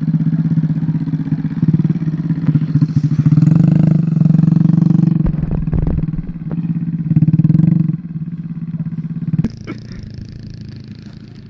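Motorcycle engine running with the throttle opened and eased in surges, then dropping to a quieter note about eight seconds in, with a sharp knock shortly after.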